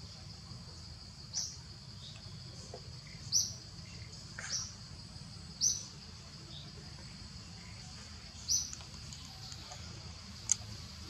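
Short high-pitched chirps, about six of them spaced a second or more apart, over a steady high insect drone, with a single sharp click near the end.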